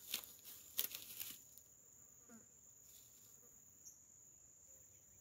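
Insects droning steadily at one high pitch, with two brief rustling noises in the first second and a half.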